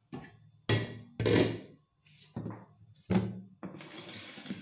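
Kitchenware, a blender jar and a non-stick frying pan, being handled and set down on a tabletop: a run of separate thuds and clunks, the loudest a little under a second in. A second of scraping rustle follows near the end.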